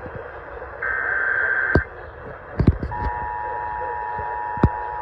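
Emergency Alert System transmission: about a second in, a one-second burst of SAME digital header tones, the coded data that announces the alert. After a short gap, about three seconds in, the steady two-tone attention signal starts and holds, the cue that a voice warning follows. A few sharp clicks, the loudest near the end.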